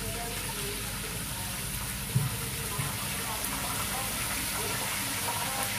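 Fish frying in a pan of hot oil on a gas stove: a steady sizzle, with a single knock about two seconds in.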